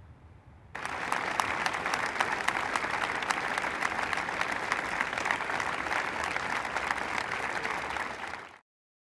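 Crowd applauding, breaking out suddenly about a second in after near quiet, a steady dense clapping that cuts off abruptly near the end.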